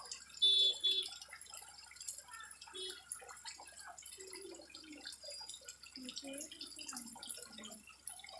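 Indistinct voices of people talking, with a few short, high-pitched chirps in the first few seconds.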